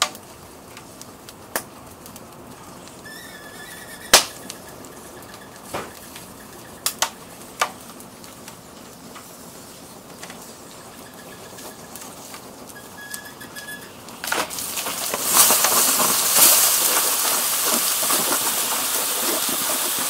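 Burning CRT television crackling, with sharp single pops every second or so and a faint thin whistle twice. About fourteen seconds in, a loud steady hiss starts as a hose is turned on the fire and the water flashes to steam.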